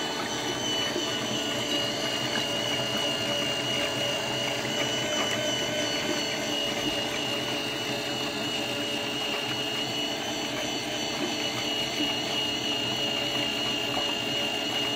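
Ultrasonic vinyl record cleaning machine running, with a steady mechanical hum and a constant high-pitched whine as the record turns slowly through the bath.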